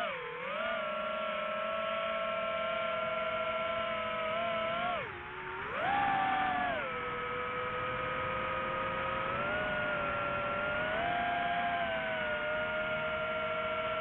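Quadcopter drone's electric motors and propellers whining, heard from the drone's own camera. The pitch dips about five seconds in, jumps back up a second later, and wavers as the throttle changes.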